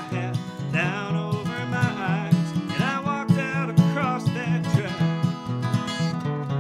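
A man singing, accompanying himself on an acoustic guitar played with a steady picked rhythm.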